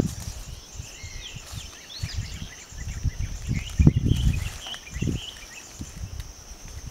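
Outdoor forest ambience: birds chirping in short rising and falling calls over a steady high insect drone, with irregular low rumbling noise coming and going, strongest in the middle.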